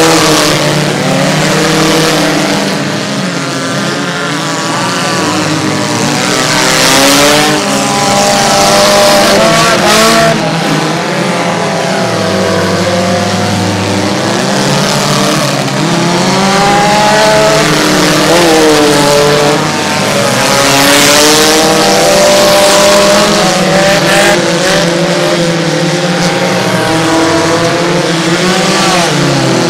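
Several small-car engines revving hard at once, their pitch repeatedly rising and falling as the mini demolition-derby cars accelerate, back up and spin on the dirt.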